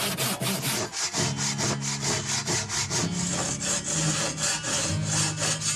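Hand saw cutting through wood in quick, even strokes, about four a second.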